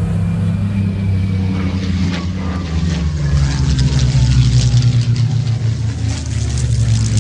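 Messerschmitt Bf 109 G-4's Daimler-Benz DB 605A inverted V12 engine in a low flypast. The engine note drops in pitch as the aircraft passes, peaks in loudness about four seconds in, then turns to a rough crackle as the aircraft banks away.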